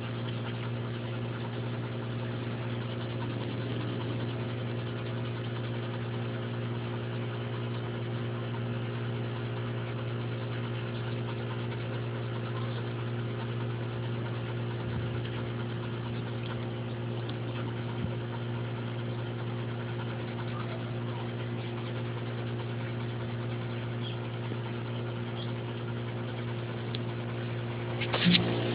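Steady machine hum: a low drone with a few fixed higher tones, unchanging throughout. A short knock comes just before the end.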